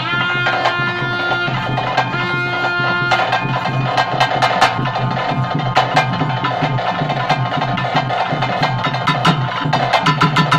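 Traditional bhuta kola ritual music: drums beat a fast, steady rhythm with frequent sharp strikes. In the first three seconds a melody instrument holds a long note twice.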